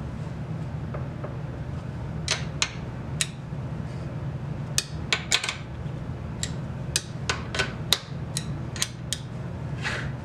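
Scattered light metallic clicks and clinks of an Allen key working the locking bolt of a mini metal lathe's carriage lock, with metal parts being handled, over a steady low hum. The clicks come in small clusters from about two seconds in, a few each second.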